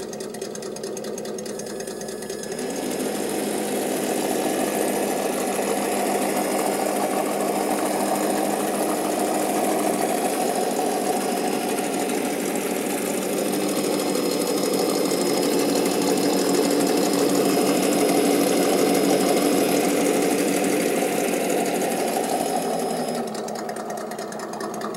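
Electronic engine sound kit in a scale RC truck playing a simulated engine through its small speaker. It idles, rises in pitch and level about three seconds in as if revved, holds there, then falls back to idle near the end.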